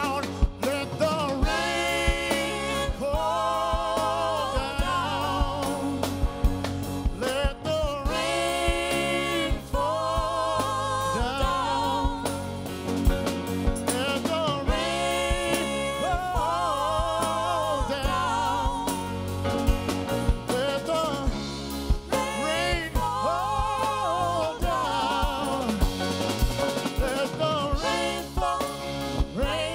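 A live band playing a soul-flavoured song, with piano, drum kit, bass and electric guitar under a lead singer and backing vocals. A steady drum beat runs beneath the singing.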